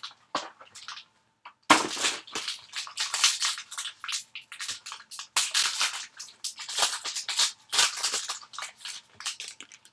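A foil trading-card pack wrapper being crinkled and rustled in the hands: a long run of crackling that starts about two seconds in.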